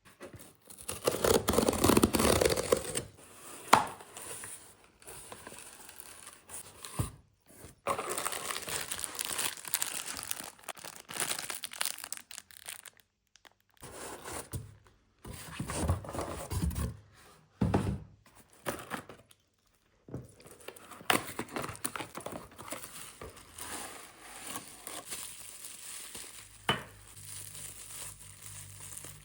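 Packaging being torn open and crinkled by hand: irregular stretches of rustling and tearing with short pauses between them, and a few sharp clicks.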